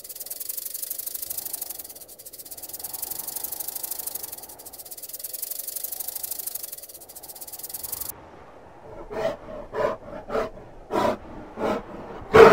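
A snake hissing in long waves that rise and fall about every two seconds, cutting off suddenly about two thirds of the way through. A sun bear then gives six short calls over about three seconds, the last ones the loudest.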